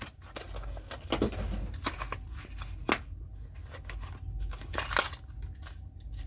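A die-cast toy car's blister card being opened by hand: the plastic blister crackling and the cardboard tearing, with several sharp snaps.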